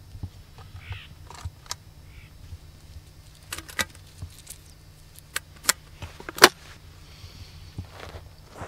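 A series of sharp metallic clicks from a Stoeger break-action double-barrel shotgun being handled and loaded, the loudest about six and a half seconds in.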